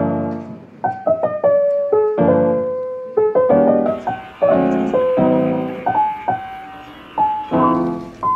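Background piano music: chords struck and left to ring, with a melody over them.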